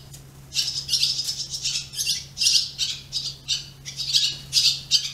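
Birds squawking over and over in harsh, raspy calls, about four a second.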